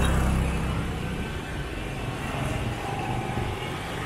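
Motor scooter passing close by, its engine rumble loudest at first and easing off after about a second as it moves away, leaving the steady noise of street traffic with other scooters further off.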